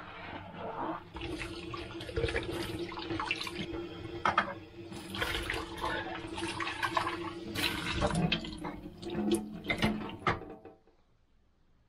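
Kitchen tap running into a stainless-steel sink while dishes are rinsed, with clinks and knocks of the dishware against each other and the sink. The water sound stops suddenly near the end.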